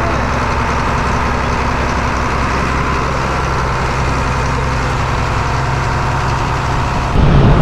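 Fishing boat's inboard diesel engine running steadily with a low, even hum. Near the end the sound turns abruptly louder.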